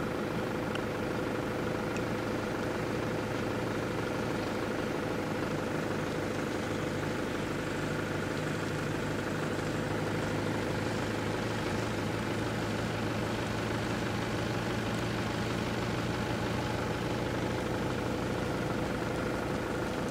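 An engine idling steadily, an even hum that does not change.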